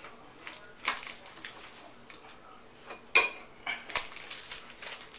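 A bar of dark chocolate being broken into pieces by hand: a few sharp snaps and clicks, the loudest about three seconds in.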